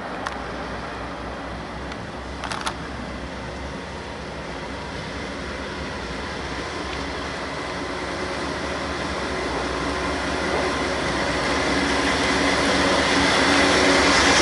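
Freight train led by two Norfolk Southern diesel locomotives approaching and drawing level, its engine rumble growing steadily louder. Two brief clicks come in the first few seconds.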